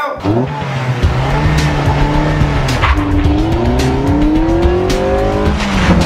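Car engine revving as it accelerates, its pitch climbing steadily and then dropping sharply near the end at a gear change, with music playing along.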